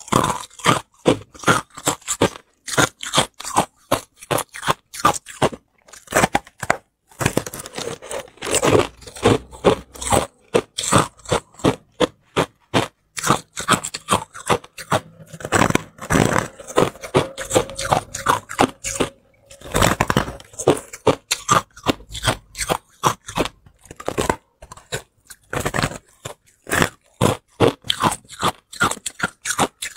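Crunching and chewing of compacted white crushed ice: many sharp, quick crunches, a few a second, with a couple of brief pauses between bites.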